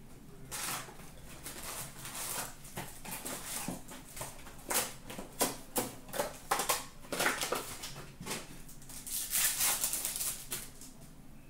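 Cardboard card box being opened and a shiny hockey-card pack wrapper crinkling and tearing: an uneven run of rustles and crackles, busiest in the second half.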